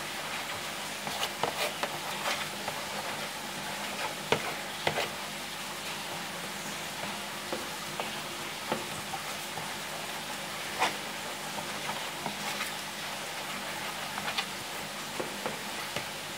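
A spoon stirring small fish through thick, wet flour batter in a plastic bowl. Irregular wet squelches and light clicks of the spoon sound over a steady hiss.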